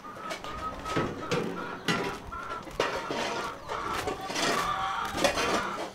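Chickens clucking, many short calls in a row, mixed with several sharp knocks.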